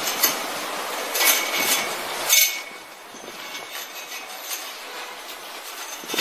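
Rustling and clicking as a plastic farm wire is handled and knotted around a metal pole, with a sharp click about two seconds in; the rustle eases off after that.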